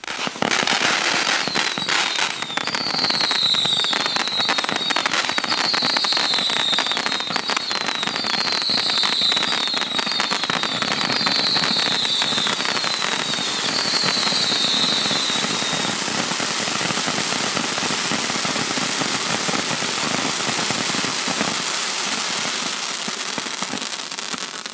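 500-shot barrage firework cake firing in rapid succession: a dense, continuous stream of pops and crackles. Through much of the first part it carries a string of short, high, falling whistles, and it dies away at the end.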